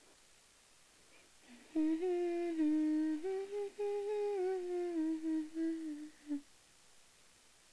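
A girl humming a slow tune with her mouth closed, starting about two seconds in and lasting about four and a half seconds. The pitch steps up and down between held notes.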